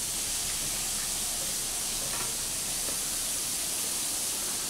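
Squid tentacles sizzling on an electric tabletop grill: a steady hiss.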